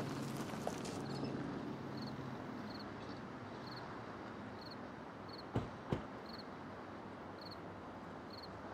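Lexus sedan's engine idling low and cutting out about two seconds in, then its two front doors shut one right after the other, two sharp knocks a third of a second apart near the middle.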